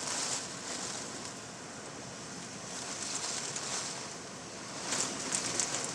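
Hurricane winds gusting: a steady rushing that swells and eases, rising again near the end with a few light taps.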